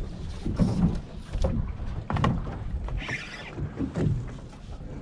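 Water slapping against a small boat's fiberglass hull, with irregular low knocks and a short splashy hiss about three seconds in.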